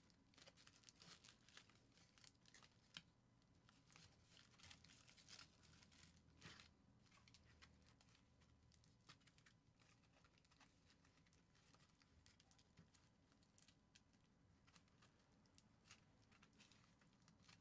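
Faint crinkling and crackling of aluminium foil being pressed and smoothed by hand over a foil sculpture, in scattered small crackles that thin out after the first half.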